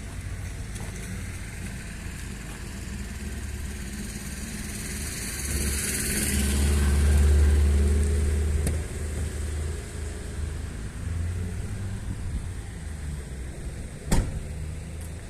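A motor vehicle engine running with a steady low hum. It grows loud about halfway through and fades again, as if passing close by. There is a single sharp knock near the end.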